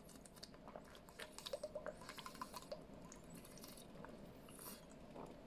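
Faint gulping and swallowing from drinking a green fiber drink out of a bottle: a run of small wet mouth clicks, mostly over the first three seconds.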